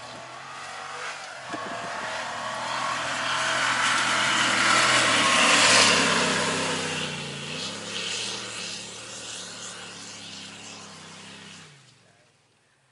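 Ford F-150 Raptor's V8 engine working hard as the pickup climbs a sand dune. It grows louder to a peak about halfway through, fades after that, and cuts off abruptly near the end.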